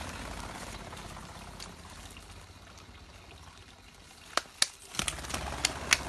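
Water trickling, fading over the first few seconds. Then, from about four seconds in, a handful of sharp, separate clicks or knocks.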